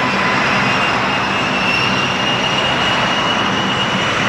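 A-10 Thunderbolt II's twin General Electric TF34 turbofan engines running as the jet taxis: a steady rushing noise with a high whine that rises slowly in pitch.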